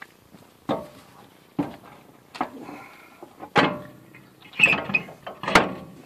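Steel truck wheel being worked onto the hub's lug studs: a series of about six metallic clunks and scrapes, roughly a second apart, some with a short ring.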